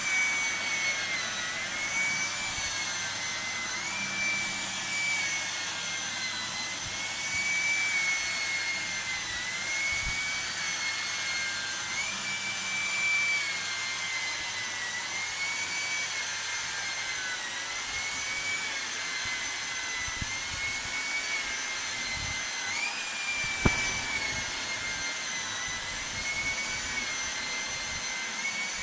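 Electrolux ZAP9940 vacuum cleaner running at maximum speed, a steady high-pitched whine whose pitch dips and recovers every couple of seconds. One sharp knock comes near the end.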